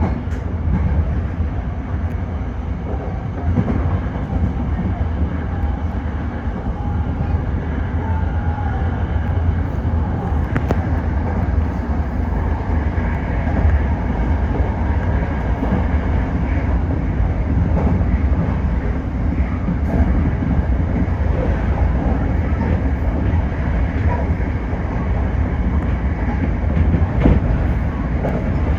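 Toyo Rapid Railway 2000-series electric commuter train running between stations, heard from inside the car: a steady low rumble of wheels on rail with occasional faint clicks.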